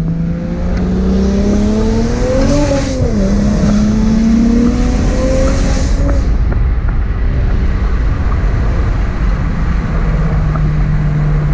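BMW 335i's N54 3.0 L inline-six, converted to an ON3 single-turbo setup, heard from inside the cabin while accelerating. The engine note climbs, drops once about three seconds in as it changes gear, then climbs again with a rushing hiss until about six seconds in. It then settles into a steady drone at cruise.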